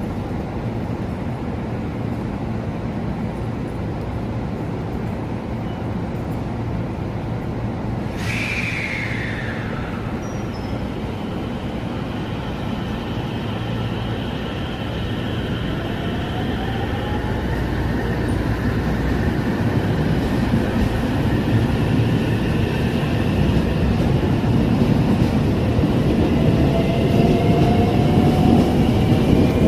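JR 313 series electric train pulling out and speeding up, its inverter-driven motors whining in rising tones while the wheels rumble louder and squeal on the curve. A sharp hiss with a short falling tone sounds about eight seconds in.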